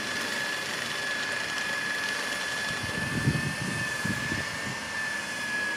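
A small motor's steady high-pitched whine, with a faint irregular low rumble for about a second and a half in the middle.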